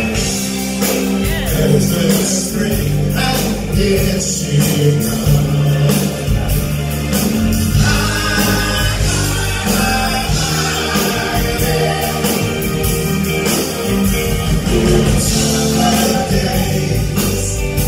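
Live soul band playing: drums, bass guitar and a Nord Electro 3 keyboard, with a woman and a man singing.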